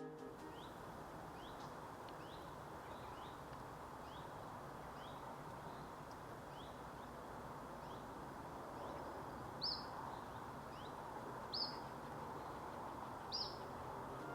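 Small songbirds calling over a steady background hiss. There is a run of short rising call notes, about two a second, then three louder, sharper notes about two seconds apart near the end.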